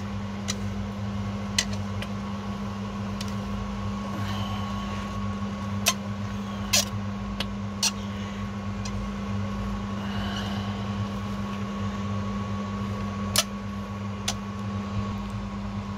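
Screwdriver clicking and scraping in the slots of a car battery's plastic vent caps as they are unscrewed, a handful of sharp clicks spread over the stretch. Under it runs a steady low hum.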